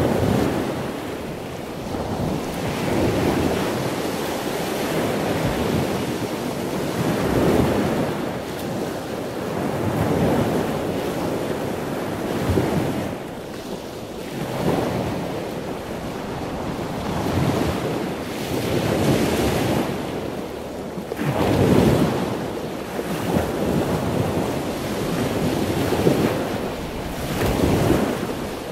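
Ocean surf: waves washing in, swelling and falling away every few seconds.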